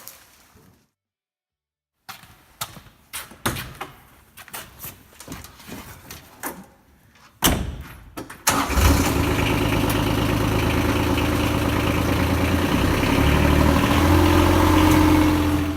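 Kawasaki Mule Pro-DX's three-cylinder diesel engine starting about halfway through, then running steadily. Before it, a series of sharp clicks and knocks.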